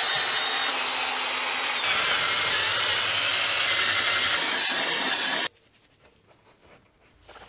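Cordless drill spinning a wire-brush wheel against a cast-iron cylinder head: a harsh scrubbing noise under a high motor whine that wavers and drops about two seconds in, then stops suddenly after about five and a half seconds. Near the end, faint rubbing of a cloth wiping the head.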